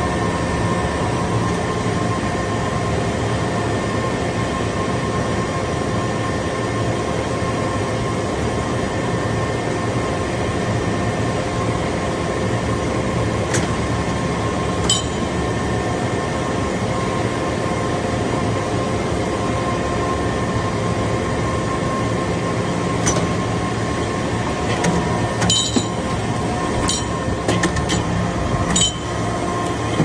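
TCM Baler metal-chip briquetting press running, its hydraulic power unit giving a steady hum and whine. A few sharp metallic clinks come through, most of them in the last few seconds.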